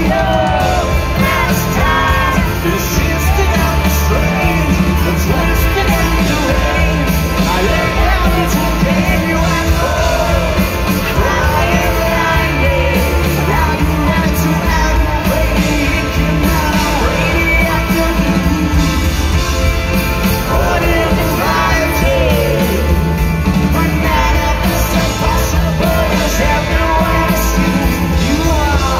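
Live rock band playing at concert volume: electric guitar with a full band behind it and a male lead vocalist singing into the microphone.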